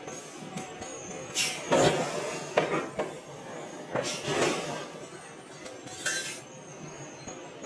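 Metal clinks and scrapes of forging tongs against a red-hot iron forging, with several short bursts of rushing hiss as flames flare up from the hot metal.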